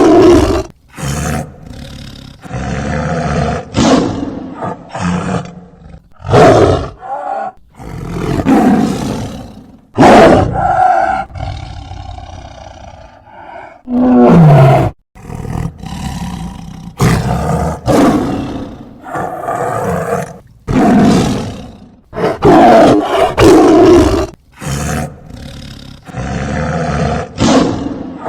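Tiger roaring again and again: about a dozen loud calls of roughly a second each, with quieter stretches between.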